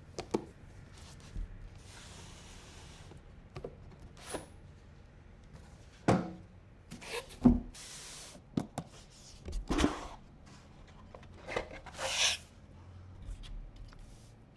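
PC parts being handled during a build: scattered clicks, taps and rubbing, with a few louder knocks between about six and ten seconds in and a short hissing slide about twelve seconds in.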